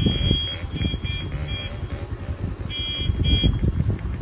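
Jeep horn beeping in repeated high-pitched toots: one longer toot, three quick short ones, then after about a second two more. Under it runs a continuous low rumble.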